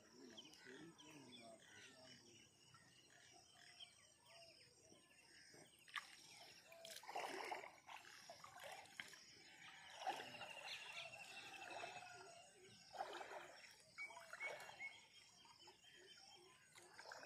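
Faint rural outdoor ambience with scattered distant animal calls and murmured voices, including a short rapid trill about ten seconds in.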